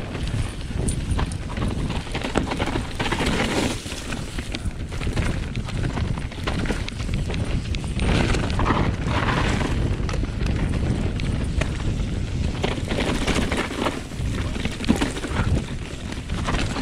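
Specialized Enduro Expert 29 mountain bike descending a dirt trail, heard from a camera on the rider: a steady low rumble of wind on the microphone and tyres rolling over dirt and dry leaves, with frequent knocks and rattles from the bike over bumps.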